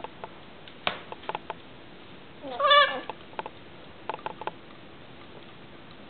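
Rainbow lorikeet giving one short call that rises and then holds, about two and a half seconds in, with scattered light clicks before and after it.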